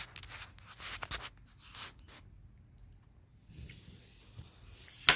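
Small plastic knife sawing through a grape and scraping on a wooden cutting board: a few rough strokes in the first couple of seconds, quieter scraping after, then a single sharp tap near the end.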